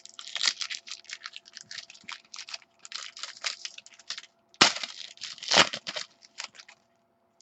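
Trading card pack wrapper crinkling and tearing open, with a rapid run of small rustles and two louder sharp crackles about four and a half and five and a half seconds in.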